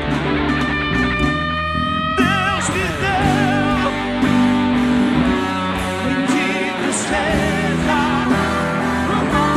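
Worship music with guitar and a singing voice that holds notes with vibrato.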